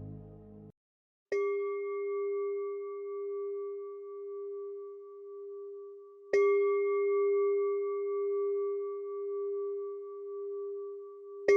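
Background music stops, then a singing bowl is struck three times, about five seconds apart, each strike ringing on with a steady, gently wavering hum.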